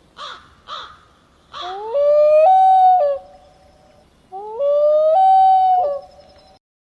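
Common loon calling: a few short rough notes, then two long wails, each climbing in steps to a held note and then dropping away.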